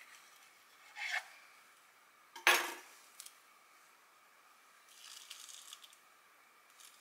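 A knife slicing through a peeled mandarin on a wooden cutting board, followed by a sharp knock as the knife is set down. About five seconds in there is a soft rustle of about a second as the mandarin halves are pressed onto the cream-topped bread.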